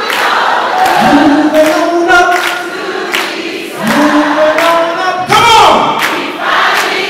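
Men's voices singing live without instruments, long held notes that scoop upward and waver with vibrato, over a cheering crowd.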